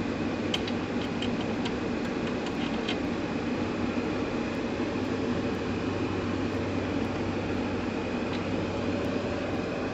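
A steady mechanical hum, like a fan or small motor running, with a few light clicks in the first three seconds.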